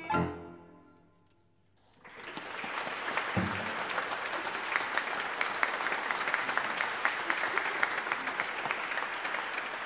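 The last chord of a violin, cello and keyboard ensemble dies away, and after about a second of silence an audience breaks into steady applause.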